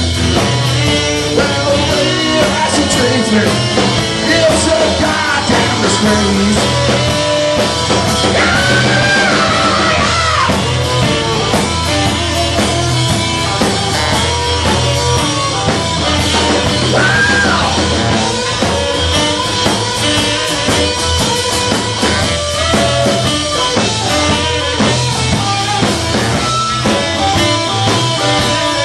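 Live rock-and-roll band playing loud, with drums, electric guitar, saxophone and singing, recorded from within the audience.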